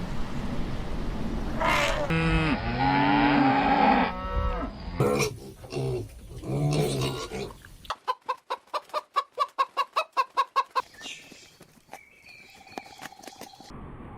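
Farm animal calls one after another: a cow mooing in a long low call, then a fast even run of chicken clucks.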